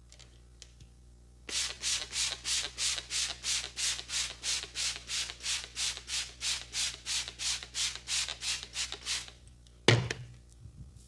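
Massaging hands rubbing briskly back and forth on skin in a steady rhythm, about three strokes a second, for several seconds. Near the end comes one sharp, loud smack.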